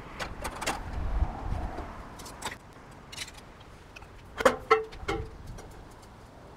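Aviation tin snips cutting and working Colorbond steel barge capping: a series of sharp metallic clicks and clanks with a short ring, the loudest pair about halfway through, over low handling rumble.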